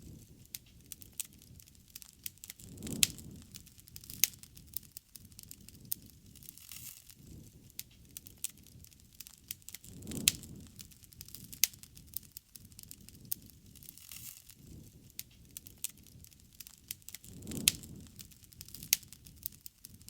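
Wood fire crackling, with frequent sharp pops and snaps and a soft low rush that swells up about every seven seconds.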